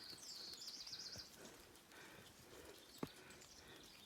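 Faint bird song: a quick warbling trill during the first second or so, with a few weaker calls later, over quiet woodland background. A single sharp click about three seconds in.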